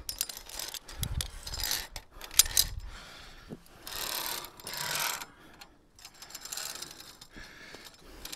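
Metal clinking and clicking of via ferrata lanyard carabiners against the steel safety cable and iron holds. The sharpest clicks come right at the start and about two and a half seconds in, with softer hissing scrapes around four and five seconds in.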